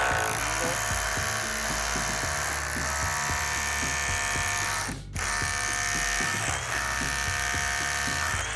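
DeWalt power drill running steadily under load, driving in a structural screw. It stops for a moment about five seconds in, then runs again.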